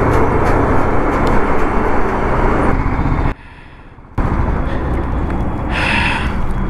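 Single-cylinder engine of a BMW G 310 GS motorcycle running at highway speed with heavy wind rush as it passes trucks. It cuts off abruptly a little after 3 s, and the engine then idles steadily with the bike at a standstill, with a brief higher-pitched sound just before the end.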